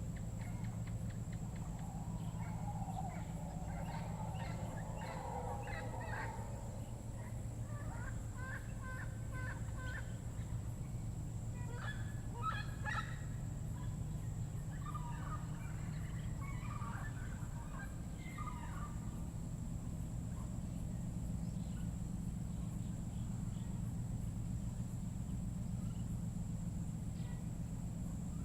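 Rainforest ambience with groups of quick, chattering bird calls at several points, over a steady low hum and a constant thin high tone.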